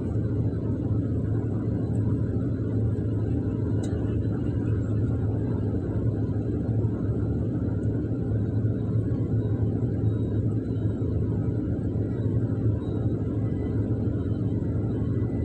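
Excavator's diesel engine running steadily under load, a low even drone heard from inside the operator's cab.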